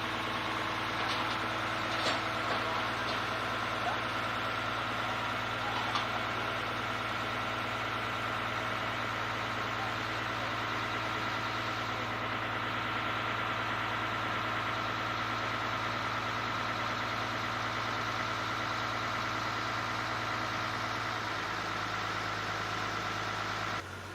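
Tadano truck crane's diesel engine running steadily at a constant speed, with a few light knocks in the first several seconds.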